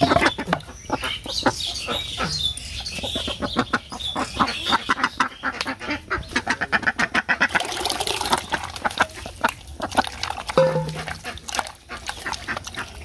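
Domestic ducks quacking, with a dense run of rapid clicks in the middle and a short call near the end.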